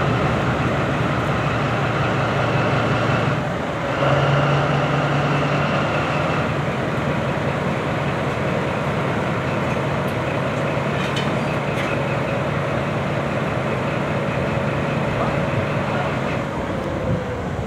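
Heavy diesel engine running steadily with a whining hum; about three and a half seconds in it dips briefly and comes back louder, then eases off gradually toward the end.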